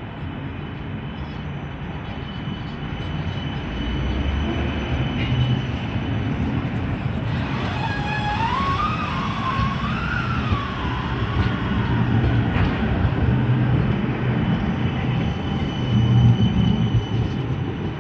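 CAF low-floor light rail tram rolling past at close range: a steady low rumble of wheels on rail and running gear that grows louder as it draws alongside, loudest near the end. Around the middle a wavering tone rises and falls for about three seconds.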